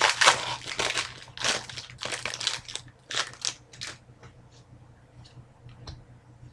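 A wrapper on a pack of hockey trading cards being torn open and crinkled by hand, in a run of dense crackly bursts for about four seconds, then only a few faint clicks as the cards are handled.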